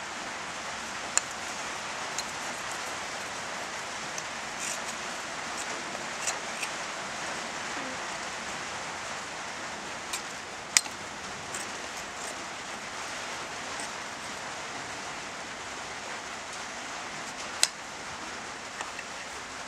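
Steady hiss of rain falling on the roof, with a few sharp ticks scattered through it.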